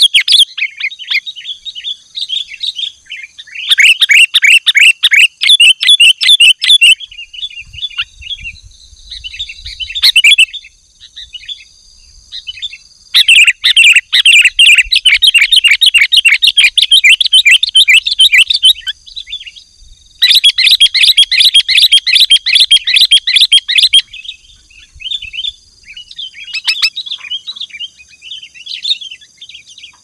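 Sooty-headed bulbuls (kutilang) in agitated, non-stop 'gacor' calling: loud, rapid chattering bouts of several seconds each, with shorter scattered calls between. A faint steady high hum sits underneath.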